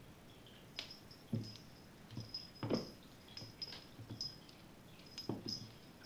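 A kitten's paws thumping and skittering on a hardwood floor as it pounces at a feather wand toy: a scatter of light taps with three stronger thumps.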